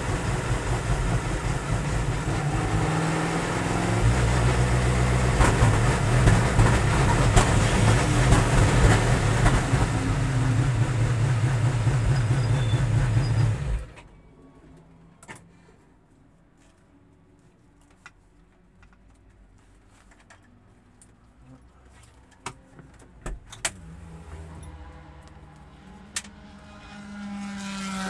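Ligier LMP3's Nissan V8 engine running inside the cockpit, growing louder about four seconds in, then cutting off suddenly about halfway through while the car is still rolling. After that only faint clicks and knocks remain.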